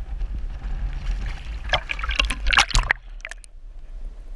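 Water splashing and sloshing around a trout held in a landing net in choppy lake water, loudest in a flurry of splashes about two seconds in. Then the sound turns dull and muffled as the net-mounted camera's microphone goes under the water.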